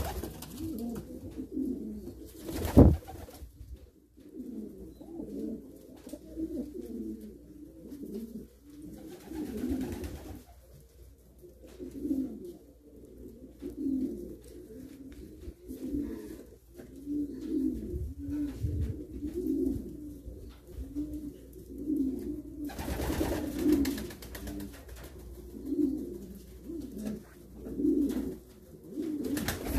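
Racing pigeons cooing over and over, low calls coming about once a second. A sharp knock about three seconds in and a brief rush of noise about two-thirds of the way through.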